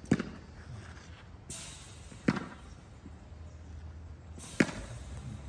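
A wooden cricket bat hitting tennis balls in a drop-ball sweep-shot drill. There are three sharp knocks, about two and a half seconds apart.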